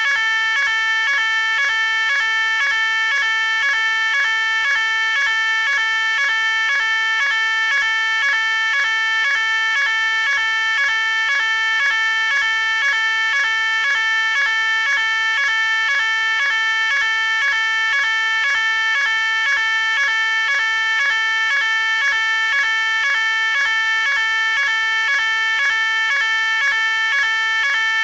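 Electronic fire alarm sounding continuously: a loud, high tone pulsing a few times a second at an even rate, without a break.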